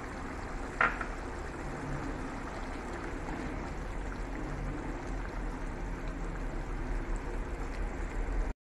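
Thick curry simmering in a non-stick frying pan while a wooden spatula stirs it, a steady wet bubbling and scraping, with one sharp clack against the pan about a second in. The sound cuts off suddenly near the end.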